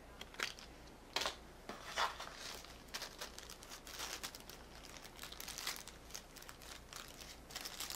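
Clear plastic packaging bag crinkling as it is handled, a run of irregular crackles with a few louder ones in the first two seconds.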